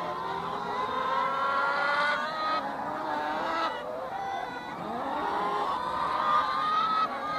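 A flock of brown hens calling, with many drawn-out, slightly rising calls overlapping at once.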